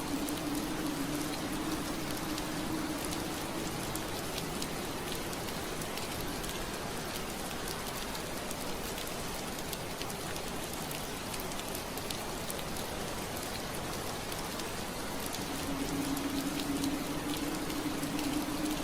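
Steady rain on a window pane: a constant hiss of rain dotted with many small drop ticks. A low steady hum runs under it for the first few seconds and comes back about three-quarters of the way through.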